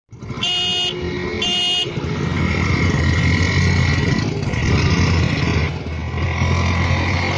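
Two short motorcycle horn beeps about a second apart. Then the single-cylinder engines of a Yamaha FZ-S 150cc and a Hero Passion Pro 100cc run hard under load as the rope-tied bikes pull against each other, their sound rising and wavering.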